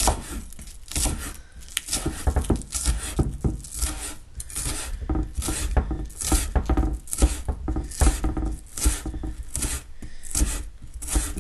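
Kitchen knife slicing through spring onion onto a cutting board: a run of quick, irregular strokes, about two or three a second, each ending in a light knock on the board.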